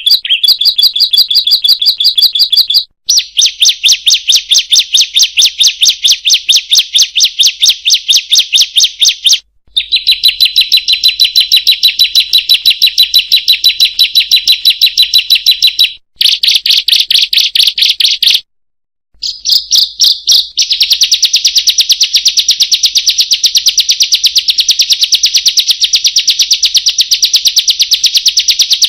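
Bar-winged prinia (ciblek) calling a fast, unbroken string of sharp high 'kriek' notes, several a second, in long runs that break off abruptly a few times.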